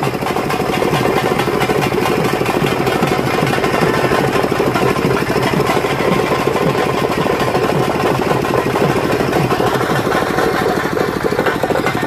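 Fast, loud, continuous drumming, a dense rapid beat that does not let up.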